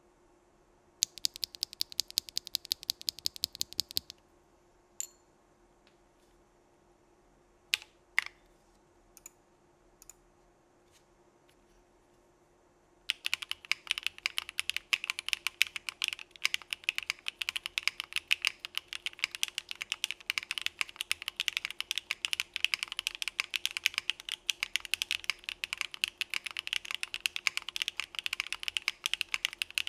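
A loose Sillyworks Hyacinth v2 linear switch pressed rapidly by hand, a fast run of clicks for about three seconds, then a few scattered single clicks. From about thirteen seconds in, steady typing on a Frog keyboard fitted with lubed Hyacinth v2 linear switches in an aluminium plate.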